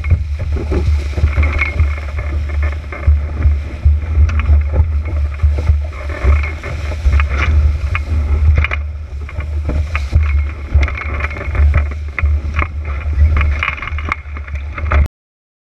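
Heavy wind buffeting on the microphone with rushing water and spray as an RS300 dinghy planes fast through short chop, the hull slapping on the waves in many short, sharp hits. About fifteen seconds in, the sound cuts off suddenly.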